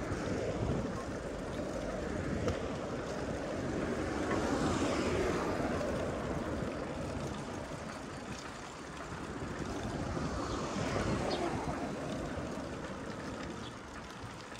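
Rushing street and wind noise from a bicycle ride, swelling twice, about four and about ten seconds in.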